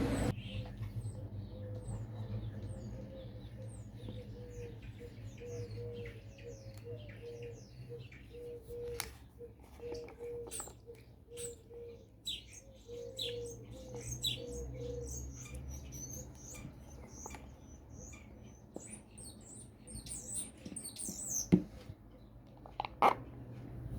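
Small birds chirping and twittering in many short, quick calls over a steady low hum, with a few sharp clicks. A rushing noise cuts off just as it begins.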